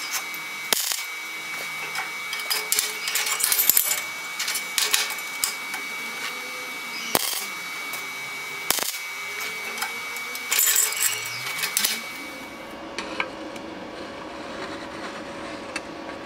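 Self-shielded flux-cored wire arc (ESAB Coreshield 15, 0.8 mm, on an ESAB HandyArc 160i) crackling and spattering as short stitch welds are laid on thin 1.2 mm steel tube. The crackle comes in uneven spurts with sharp pops and stops about twelve seconds in, leaving a faint steady hum.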